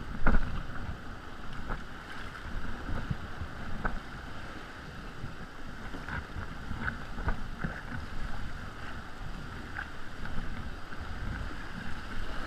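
Choppy sea water sloshing and splashing against a plastic tandem sea kayak as it is paddled, with the splash and drip of paddle strokes and wind rumbling on the microphone. A louder splash comes just after the start.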